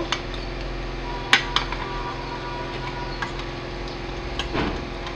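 Metal ladle clinking and scraping against a stainless steel cooking pot as pieces of meat are stirred: a few sharp clinks, the loudest about a second and a half in, over a steady low hum.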